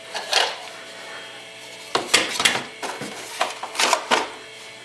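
Dead fire alarm parts being put back into a box, knocking and clattering against each other in several short bursts.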